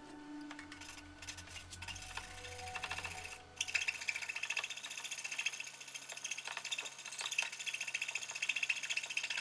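A coping saw cutting through a clamped wooden block with quick, even back-and-forth strokes, growing louder a few seconds in.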